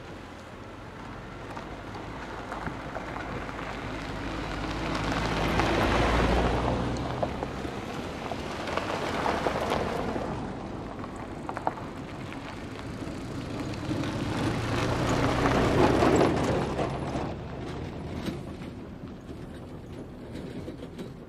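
Cars and a small truck driving past one after another on a gravel road, engines running and tyres crunching over the gravel. The loudest passes come about six seconds in and again around sixteen seconds, with a lighter one in between.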